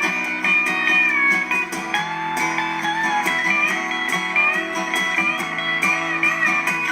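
Background music: a song with guitar lines over a steady beat.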